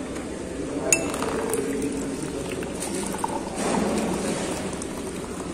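A stainless-steel tumbler clinks sharply once, about a second in. Then a drink runs from a steel dispenser's tap into the tumbler, a steady pouring that starts in the second half.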